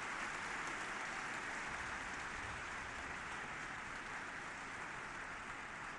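Audience applauding: many people clapping in a steady, dense patter that slowly eases off.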